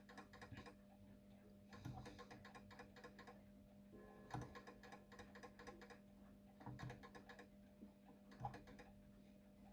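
Faint clicking from a Napoleon mantel clock's escapement, coming in about five short bursts of rapid ticks as the beat is set, over a steady low hum.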